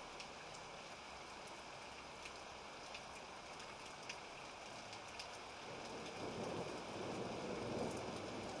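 Steady rain with scattered drops ticking sharply. Low thunder rumbles in over the last few seconds and grows louder.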